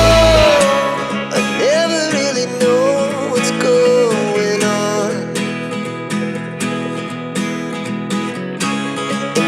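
Background music led by plucked acoustic guitar, with a melody line over it; the deep bass drops away about half a second in.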